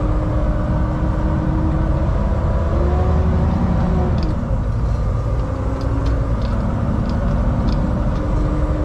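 Volvo VNL semi-truck's diesel engine running as the truck rolls slowly, heard inside the cab: a steady low rumble with a hum that shifts a little in pitch.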